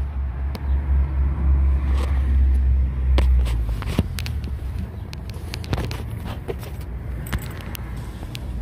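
Lincoln Town Car's 4.6-litre V8 idling through a new 2.5-inch cat-back exhaust with an H-pipe: a steady low exhaust rumble, heavier for the first three and a half seconds and then lighter.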